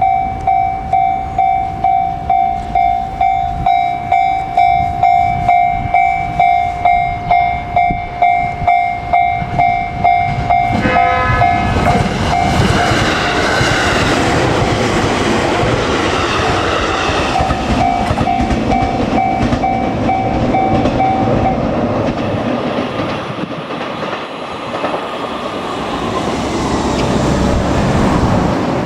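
Japanese level-crossing warning bell ringing in a steady pulse of about two beats a second. About 11 seconds in, a JR Kyushu electric train gives a short horn blast and runs over the crossing, its wheels and running gear loud on the rails. The bell carries on faintly under the train and stops about two-thirds of the way through.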